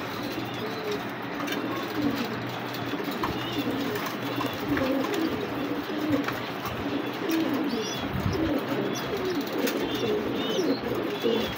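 Domestic pigeons cooing in a low, wavering murmur, with short high chirps over it.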